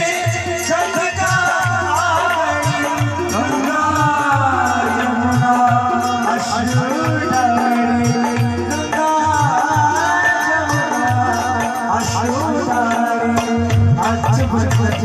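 Indian devotional bhajan music: a sung melody gliding over steady held tones, with regular tabla and dholak strokes.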